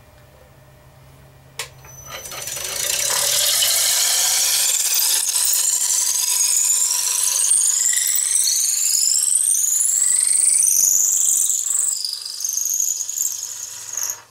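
Veritas 3/8-inch dowel maker shaving a square wooden blank spinning in a lathe chuck down into a round dowel. A click comes about a second and a half in. From about two seconds there is a loud, shrill cutting noise with whining tones that climb in pitch, easing off near the end.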